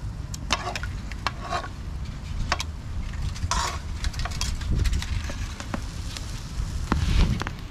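Food sizzling on a grill, with scattered sharp clicks and scrapes of utensils over a steady low rumble.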